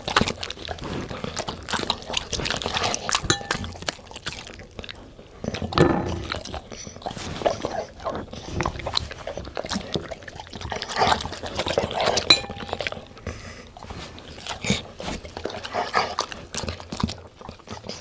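A dog eating: irregular crunching and chewing, with louder bursts around six, eleven and twelve seconds in.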